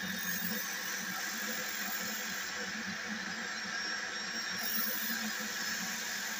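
Electric drill spinning a sanding disc at a steady speed while the flat of a steel knife blade is pressed against the abrasive, a continuous whir with a hiss of sandpaper on steel. The hiss brightens and fades a couple of times as the blade's contact with the disc changes.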